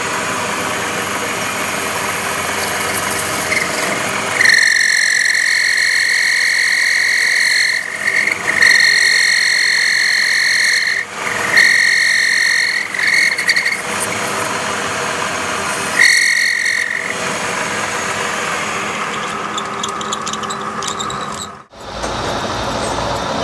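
Metal lathe running as the cutting tool works the end of a spinning steel truck input shaft. A high-pitched squeal from the tool against the shaft comes and goes in five stretches of a fraction of a second to about three seconds, between about 4 and 17 seconds in.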